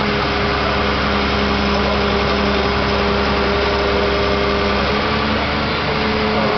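Komatsu PC228US excavator's diesel engine and hydraulics running steadily as the boom raises the demolition grab, a constant drone whose higher tone shifts about five seconds in.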